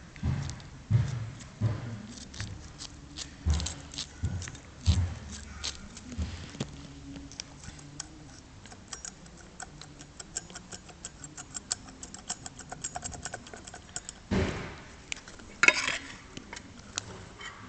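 Light metallic clicks and knocks from the failed Garrett GT1749V turbocharger being handled, with a long run of rapid, fast ticks in the middle and two louder scraping bursts near the end.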